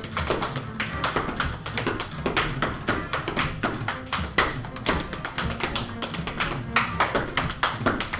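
Step-dance body percussion: fast, sharp stomps on a wooden floor, claps and hand slaps on the chest in a tight rhythm, over a hip-hop backing track with a steady bass.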